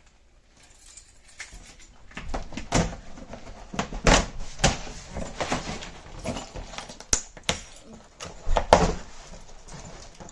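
Cardboard shipping box being pulled open by hand: flaps and packing tape rustling, scraping and tearing in irregular bursts, with several sharp rips, the loudest about four, seven and eight and a half seconds in.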